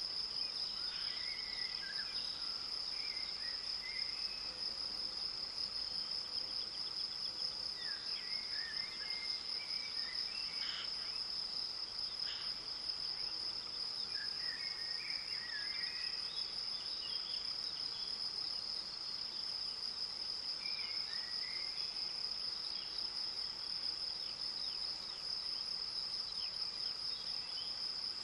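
A chorus of crickets making a steady, unbroken high trill, with a songbird singing short phrases every few seconds above the meadow.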